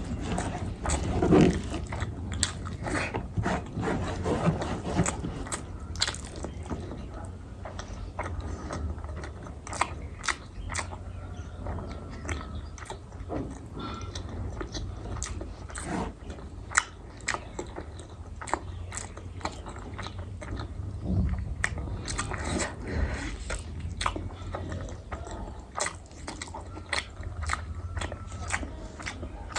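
A person chewing and biting food close to the microphone, with frequent irregular mouth clicks and crunches.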